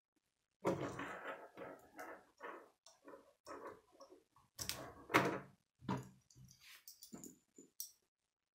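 Plastic K'nex rods and connectors clicking and clattering as they are handled and snapped together by hand, in an irregular string of short clicks with brief pauses between them.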